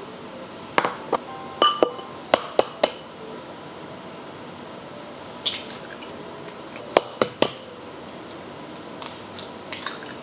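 Sharp clinks on glassware with a brief glassy ring, in bursts: a quick run of them about a second in, a single one near the middle, three more around seven seconds, then faint clicks near the end. These are eggs being tapped and cracked against the rim of a glass bowl.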